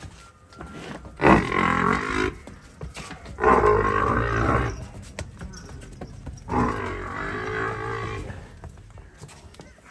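Water buffalo lowing three times, each call about a second long, with the third drawn out longer.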